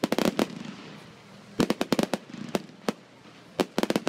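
Fireworks going off: sharp bangs in quick clusters of three or four, at the start, about a second and a half in, and again near the end, with single bangs between.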